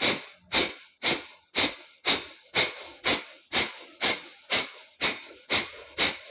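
Rapid, forceful exhalations through one nostril in kapalbhati breathing, with the other nostril pressed shut by a thumb: a sharp nasal puff about twice a second, each starting suddenly and fading away, with no audible inhale between them.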